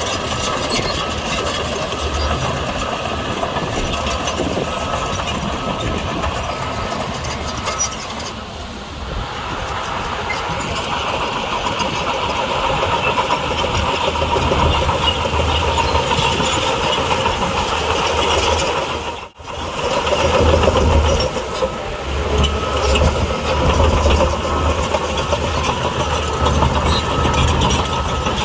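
Diesel engines of heavy earthmoving machinery running steadily while working, with a continuous low rumble and a mechanical clatter. The sound cuts out for an instant about two-thirds of the way through.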